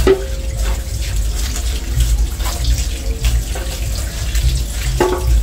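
Tap water running into a stainless-steel sink as a lobster is rinsed and handled under it, with a couple of short knocks of shell against the sink and a low rumble underneath.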